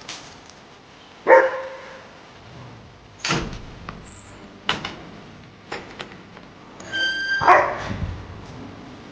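Dog barking in several short, separate barks, the loudest about a second in and again near the end.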